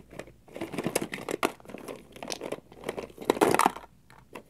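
Hard plastic Littlest Pet Shop toy figures clicking and clattering against each other and the plastic bin as a hand rummages through them, in irregular bursts with the loudest rattle about three and a half seconds in.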